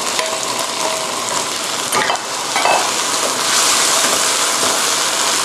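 Peeled white shrimp sizzling in hot oil and pounded chilli-garlic in a non-stick wok as they are stirred with a spatula, with a few clicks of the spatula against the pan about two seconds in. The sizzle grows louder from about three and a half seconds in.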